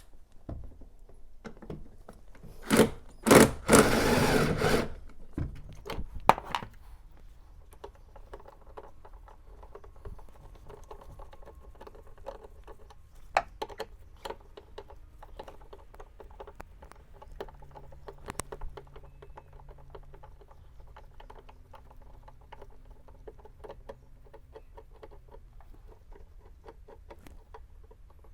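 Cordless power gun spinning out a 10mm bolt in three short bursts about three seconds in, the last lasting about a second. Scattered light clicks and knocks of parts being handled follow.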